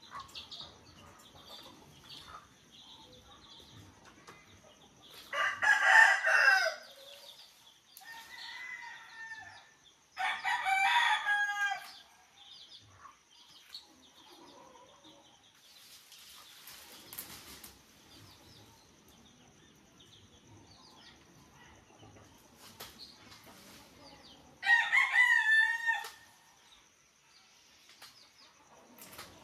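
A rooster crowing three times, each crow lasting about a second and a half, with a fainter call between the first two.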